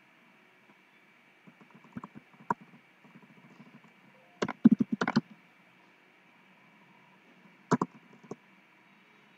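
Typing on a laptop keyboard: quick key taps in three short bursts, the loudest run about halfway through.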